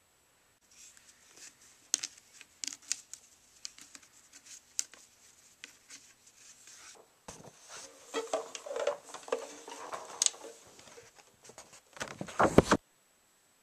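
A cake of violin rosin being rubbed along the bow hair, making dry scratchy rubbing and clicking that grows denser past the middle. A short loud burst of noise comes near the end.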